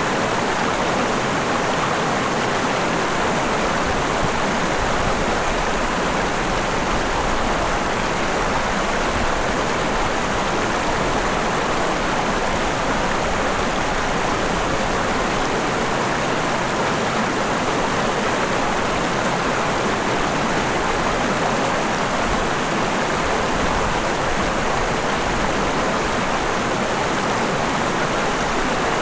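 River water flowing: a steady, even rush of water with no breaks.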